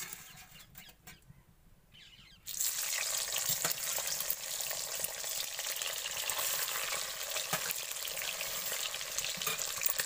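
Egg paneer cubes hitting hot oil in a kadhai: a sudden sizzle about two and a half seconds in, then steady frying. Before it, a few light clicks of a steel spoon and plate.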